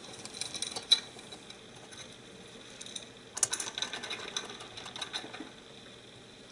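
Screwdriver driving screws into a KitchenAid stand mixer's head cover: quick runs of small clicks and scrapes of metal on metal, played sped up. One burst of clicking comes in the first second and a longer one from about three and a half to five seconds in.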